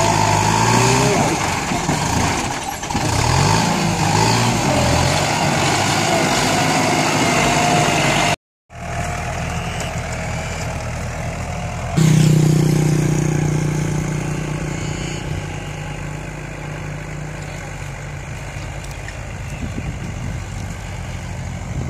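Kubota tractor diesel engine working under load, its pitch rising and falling as it pulls a disc harrow through soil. After a sudden break about eight seconds in, a second tractor's engine runs more steadily while rotary tilling, loud for a moment near twelve seconds and then slowly fading.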